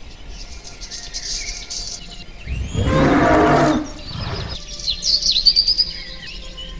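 A dinosaur's bellowing call, lasting about a second and starting about two and a half seconds in, over a forest ambience of chirping birds.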